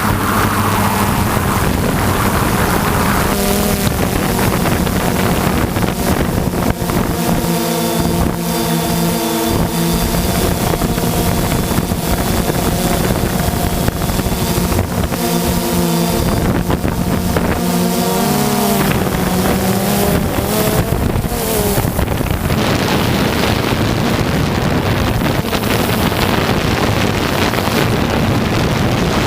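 Propeller aircraft engines droning steadily, with wind noise on the microphone. A second engine tone joins about three seconds in, wavers in pitch about two-thirds of the way through, then fades out.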